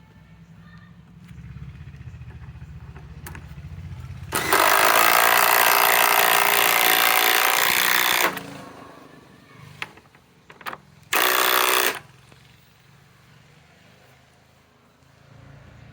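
Cordless impact driver (Masterforce Boost, 2,000 inch-pounds) hammering a long fastener into wood for about four seconds. About three seconds later it gives one short final burst.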